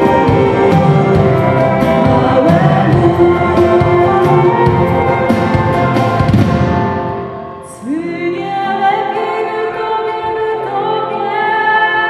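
Live band performing a Polish Christmas carol, with singing over drums and instruments. The playing dies away about seven seconds in, and a softer passage of held sung notes without drums begins a second later.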